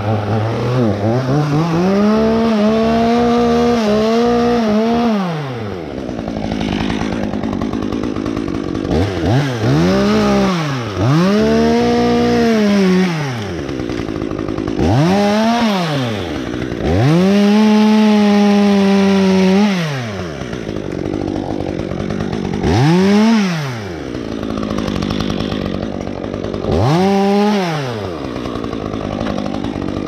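Two-stroke top-handle chainsaw revved up and held at full throttle about seven times, for one to four seconds each, dropping back to idle between, as the climber cuts limbs in the tree.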